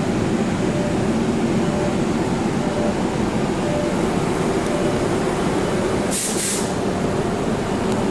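MBTA Orange Line subway train of 01200-series cars pulling out of the station past the platform, with steady motor and wheel-on-rail noise. A short burst of hiss comes about six seconds in.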